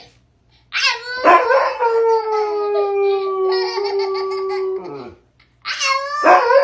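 A husky howling: one long, steady howl of about three seconds that slides down in pitch at the end. After a short pause, a new burst of howling comes in, mixed with a toddler's high-pitched squeals.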